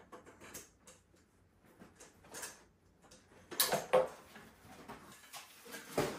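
Baby high chair being assembled by hand: its frame and seat parts clatter and click as they are turned and fitted, with a few louder knocks about three and a half seconds in and again near the end.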